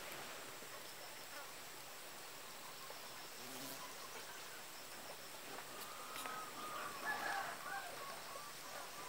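Faint outdoor background with distant bird calls, wavering and loudest about seven seconds in.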